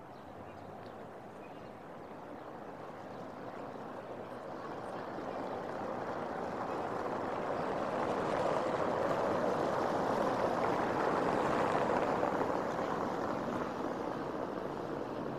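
A vehicle passing on a cobblestone street, its tyre noise swelling over several seconds, loudest about three-quarters of the way in, then fading.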